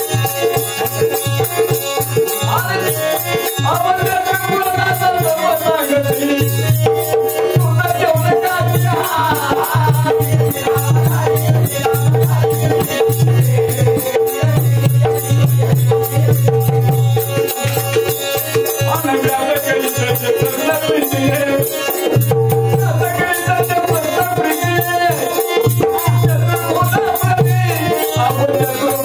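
Marathi kalgi-tura folk music: hand-drum rhythm with a jingling rattle over a steady drone, and melodic phrases that come and go.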